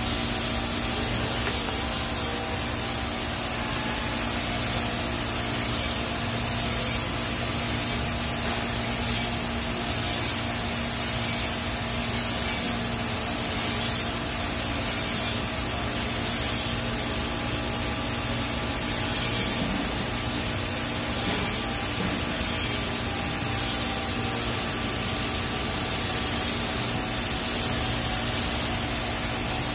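TIG welding arc on a stainless steel pipe root pass: a steady, unbroken hiss with a constant electrical hum underneath.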